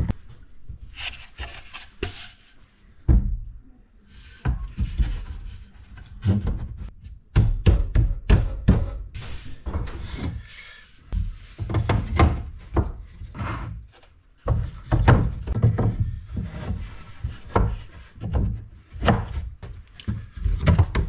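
Wooden door parts being fitted together on a plywood workbench during a dry fit: rails and stiles knocked and slid against each other and the snug plywood panel, giving irregular wooden knocks and clatters mixed with wood rubbing on wood.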